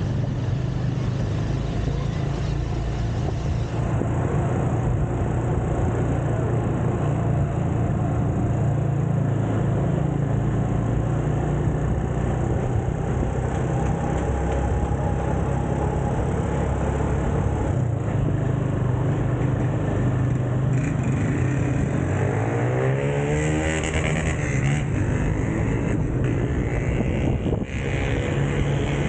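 Motorcycle taxi's engine running steadily during a ride, with a rise and fall in engine pitch about three-quarters of the way through.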